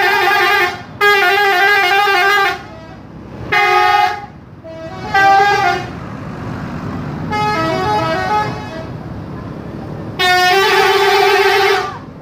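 Nafit Trans bus's telolet horn, a multi-tone musical air horn, sounding in about six loud blasts. One blast, in the middle, steps through several notes like a short tune.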